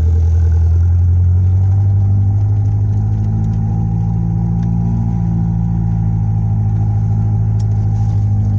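Dune buggy engine running steadily while driving over a sandy trail, heard from inside the buggy as a loud, even low drone.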